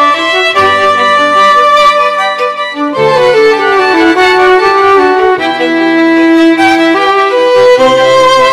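Background music: a melody on violin, held notes moving stepwise, over a lower accompaniment.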